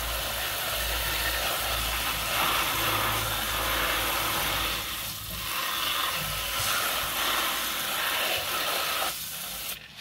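Garden hose spray nozzle jetting water onto a plastic toy truck and wet concrete: a steady hiss of spray that cuts off just before the end.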